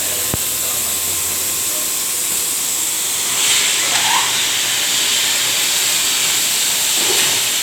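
Steady loud hiss from a tarpaulin press machine, with a single click shortly after the start and a swell of louder hiss a little after the midpoint.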